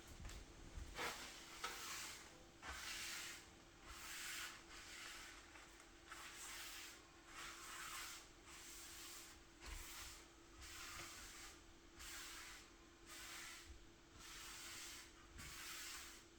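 Faint, repeated rubbing or scraping strokes by hand, about one a second, over a faint steady hum.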